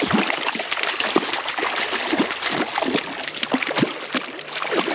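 A hooked brown trout thrashing and splashing at the water's surface, a quick, irregular run of splashes over the running creek.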